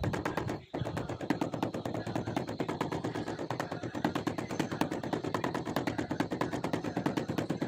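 White rubber mallet tapping rapidly and evenly on a porcelain floor tile to bed it into the tile adhesive, with one short pause about a second in.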